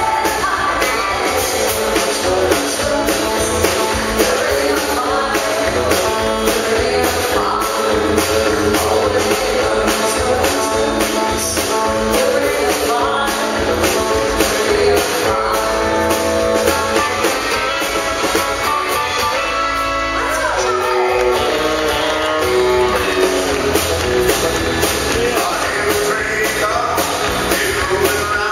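Live country band playing a song: singing over electric guitar, fiddle and drums.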